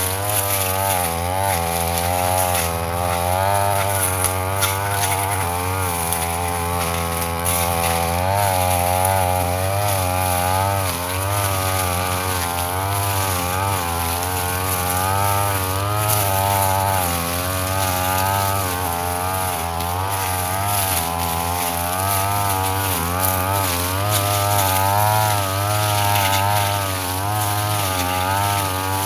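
Brush cutter engine running continuously at high speed while cutting grass, its pitch wavering up and down throughout.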